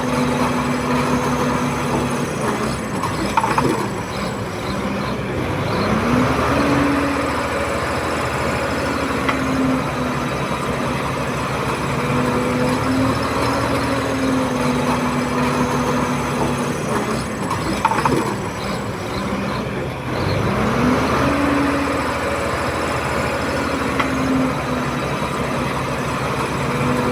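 Komatsu D31P crawler bulldozer's diesel engine running steadily. Twice, about 14 seconds apart, a sharp clank is followed by the engine note dropping and then climbing back up.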